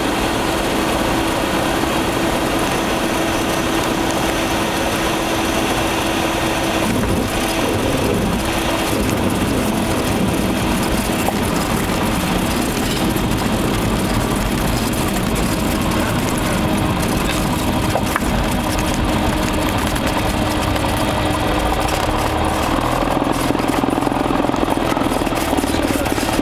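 Cessna 172's engine and propeller running steadily at low taxiing power, heard inside the cabin as a constant drone with a steady hum.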